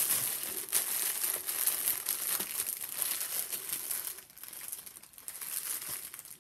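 Small plastic bag crinkling as it is handled and filled, busy for the first few seconds, then fainter.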